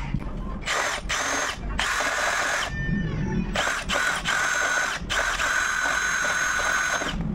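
Power drill boring out a seized aluminium-and-steel-threaded bottle-cage rivnut in a road bike frame, which had spun in place instead of unscrewing. The drill runs in a string of short bursts and then a longer run of about two seconds near the end, with a steady high whine while it cuts.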